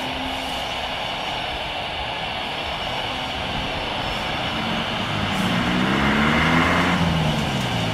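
Airbus A320 airliner's jet engines and rush of air as it lands and rolls out along the runway. About five seconds in the noise swells as the jet passes, and its engine tones slide down in pitch.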